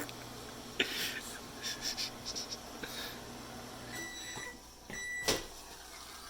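Microwave oven running with a steady low hum that stops about four seconds in, followed by two electronic beeps signalling the end of the cooking cycle, and a click just after the second beep.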